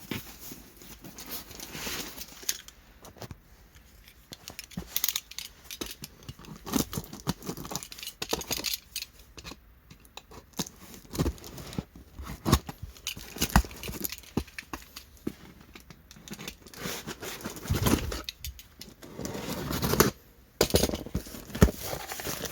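Packaging being handled and torn open: irregular crinkling, tearing and scraping with sharp clicks.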